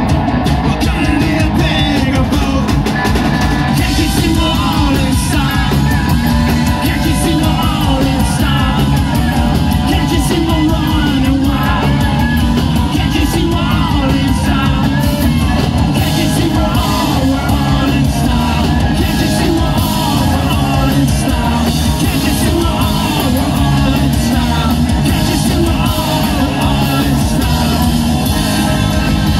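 Rock band playing loud and live: electric guitars, bass and drum kit, with shouted vocals.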